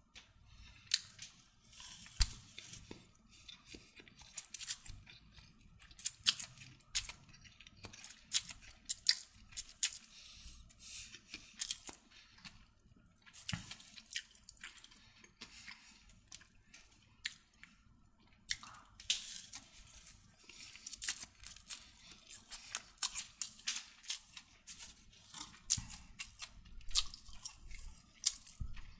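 Someone eating chicken fried noodles close to the microphone: chewing, with many short, sharp, irregular clicks and crackles.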